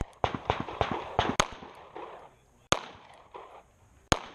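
Backup pistol fired in a timed string: a quick run of shots in the first second and a half, then two slower single shots about a second and a half apart.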